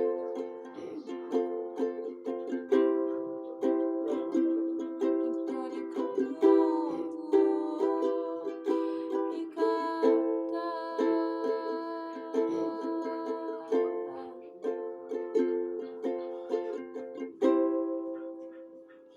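Ukulele strummed in chords, the chord changing every few seconds, with the last chord ringing out and fading near the end.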